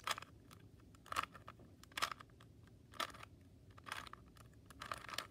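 Rubik's Cube layers being turned by hand: short plastic clicks, about one a second, six in all, as a move sequence is worked through to solve the yellow top face.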